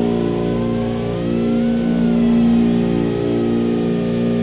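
Motors and propellers of an iFlight Chimera 4 FPV quadcopter whining in flight, the pitch gliding up and down as the throttle changes.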